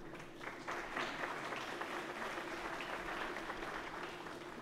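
Banquet audience applauding: many hands clapping in an even patter that picks up about a second in and thins out near the end, over a faint steady hum.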